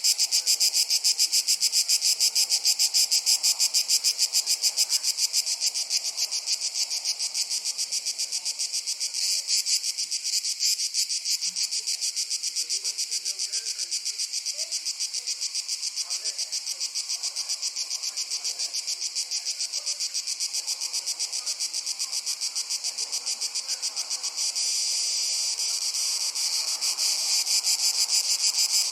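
A chorus of crickets chirping in a fast, even pulsing rhythm, high-pitched and continuous, a little softer through the middle and swelling again near the end.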